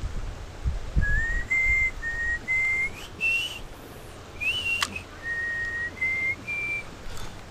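A person whistling a tune: a string of clear held notes that step up and down in pitch, with one sharp click about halfway through.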